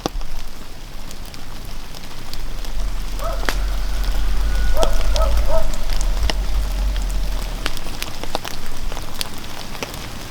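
Outdoor cooking fire crackling, with scattered sharp pops at irregular moments over a steady low rumble that swells in the middle.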